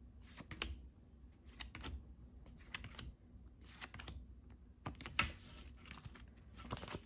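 Trading cards handled by hand: faint irregular clicks and slides as cards are flipped one behind another through a small stack, with a slightly louder shuffle about five seconds in.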